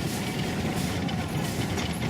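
Steady rumble of a small trolley train running along its narrow-gauge track, with a faint thin tone over it.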